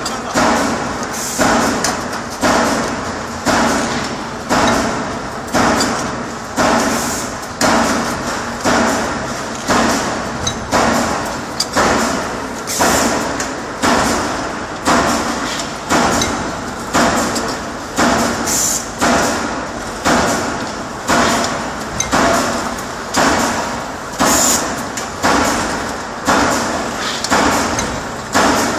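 Fully automatic multi-station hydraulic deep-drawing press for pots cycling. A sharp mechanical clank comes about once a second, each one fading before the next.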